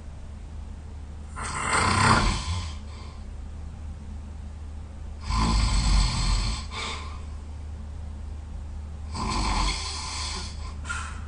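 A person snoring loudly in sleep: three snores about four seconds apart, with quieter breathing between them.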